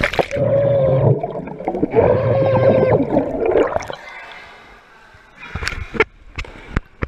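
Muffled underwater sound picked up by a submerged action camera: gurgling water with a wavering hum, for about four seconds. The camera then comes above the water, and after that there are only a few short splashes.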